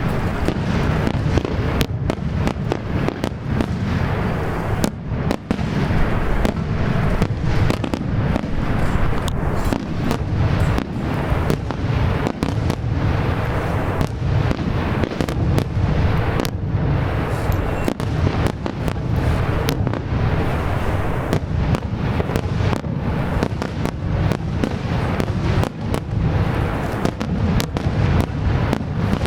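Fireworks finale: a dense, unbroken barrage of bursts and crackling reports, several a second, over a continuous low rumble of booms.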